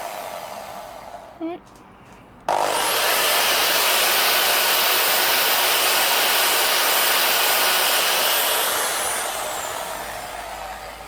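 Electric drill spinning a polishing mop against an engine case: it starts suddenly about two and a half seconds in, runs at full speed with a steady high whine and rubbing hiss for about six seconds, then winds down. Before it starts, the fading end of an earlier run is heard.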